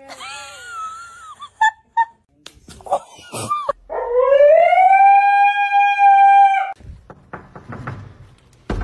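A husky howling: one long howl that rises in pitch and then holds steady for about three seconds before cutting off.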